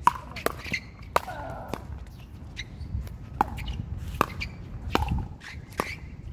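Pickleball paddles striking a hard plastic pickleball in a fast rally: a string of sharp, ringing pocks, about one every half second to a second.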